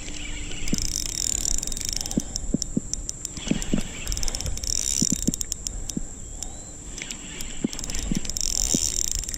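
Fishing reel clicking in about three bursts of rapid ticks while a catfish is fought on the line.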